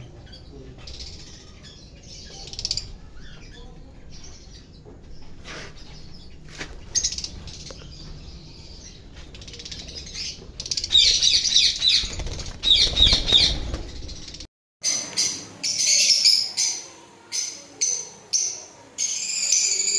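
Parrots calling and chirping, with wing flapping. The calls are faint at first, grow loud about halfway through, and after a brief break come as a run of sharp, repeated high calls.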